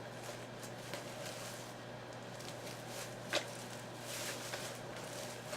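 Faint rustling and handling of packaging as a robe is dug out of its box, with a few light clicks and one sharper click about three seconds in.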